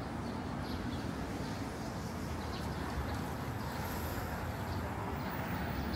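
Steady city street traffic noise, a continuous low rumble of passing vehicles.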